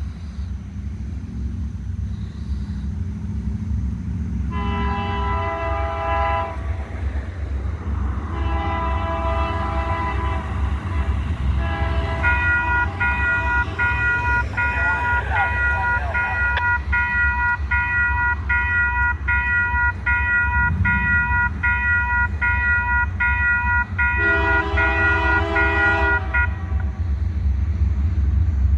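Diesel freight locomotive's horn sounding for a grade crossing: two long blasts, a long stretch of quickly repeated horn notes, then a final long blast. Under it, the low rumble of the approaching train grows steadily louder.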